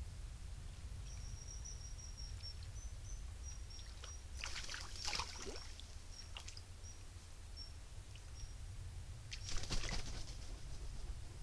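Two short bouts of splashing in a shallow stream, about four and a half and nine and a half seconds in, as a grey heron wades through the water. Under them runs a steady low rumble, and a faint thin high whine comes and goes through the first two thirds.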